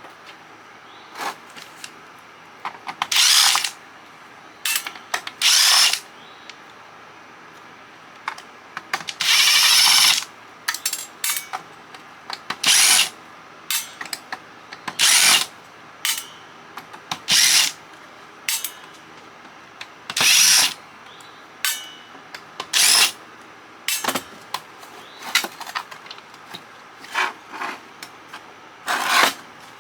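A power screwdriver running in short bursts of about half a second to a second, every two to three seconds, with small clicks of metal parts in between, as screws are backed out during a CB radio teardown.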